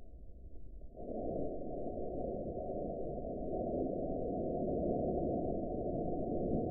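Muffled radio static hiss that comes on abruptly about a second in and holds steady.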